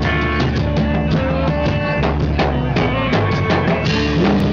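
Live blues-rock band playing at full volume: drum kit keeping a steady beat under electric keyboard and guitar.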